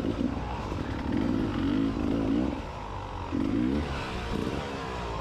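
Enduro motorcycle engines revving in short bursts, the pitch wavering up and down with the throttle over a steady lower engine drone.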